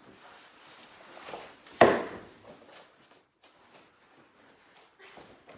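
A person being thrown and landing on a padded mat: one loud thud about two seconds in, amid the rustle of cotton gis and shuffling feet.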